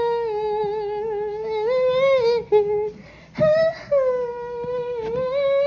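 A woman humming a slow melody in long, held notes, in two phrases with a short break about halfway through.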